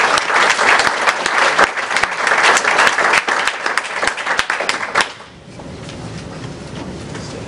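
Audience applauding, many hands clapping, dying away about five seconds in and leaving quiet room noise.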